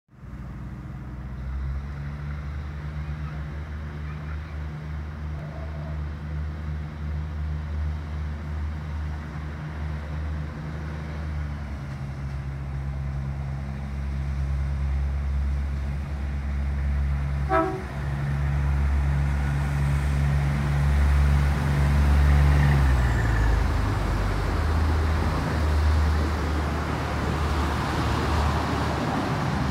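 Iarnród Éireann 2600 Class diesel multiple unit pulling away, its diesel engine running with a low steady note that steps in pitch. A little past halfway the driver gives one short toot on the horn, and the train's noise then grows louder as it passes beneath.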